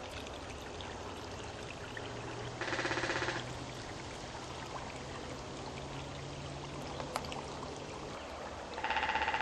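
Creek water pouring steadily over the crest of a log V-weir into the pool below. Twice a short pitched call cuts in over the water, about two and a half seconds in and again near the end.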